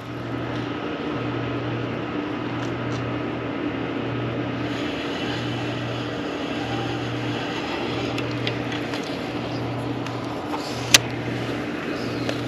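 A steady mechanical hum with a low drone that throbs on and off roughly once a second, and one sharp click about eleven seconds in.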